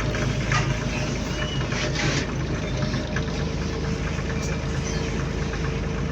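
Bus diesel engine running, heard from inside the passenger cabin, with a steady low rumble and continual light rattling of the bus's panels and fittings. A steady tone comes in about three seconds in.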